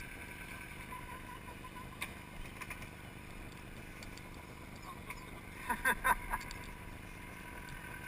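An off-road vehicle running steadily with a constant whine, a click about two seconds in, and a few short loud sounds about six seconds in.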